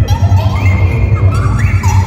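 Live electronic music from a Buchla modular synthesizer: a deep, pulsing bass drone under pitched tones that swoop up and down in pitch again and again, several glides a second.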